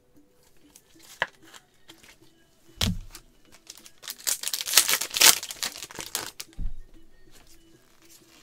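Plastic trading-card pack wrapper crinkling and tearing as it is ripped open by hand, loudest for a couple of seconds past the middle. A dull thump comes just before the rustling and another right after it.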